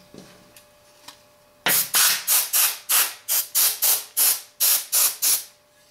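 Quick back-and-forth rubbing strokes of a cleaning wipe on the phone's housing: about a dozen hissy strokes at roughly three a second, starting about two seconds in and stopping shortly before the end.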